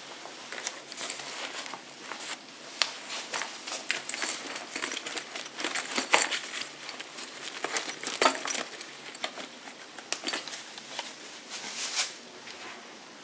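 A new motorcycle tank bag and its packaging being handled: irregular crinkling, rustling and sharp clicks, with a few louder knocks about six, eight and twelve seconds in.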